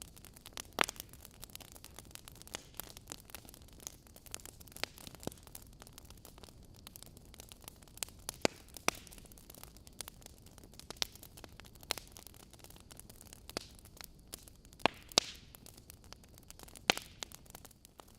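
Wood fire in a fireplace: logs crackling over a low hiss, with irregular sharp pops, a few louder ones standing out.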